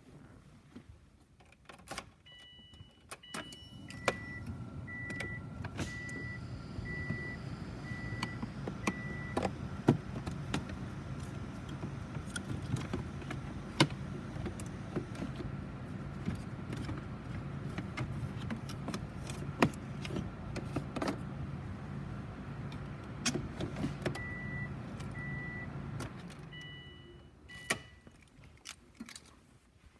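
A car's electronic warning chime beeps repeatedly, about two beeps a second, for several seconds near the start and again near the end. In between, a steady low hum runs from the car, with scattered sharp clicks and knocks of plastic trim being pried and handled around the gear shift.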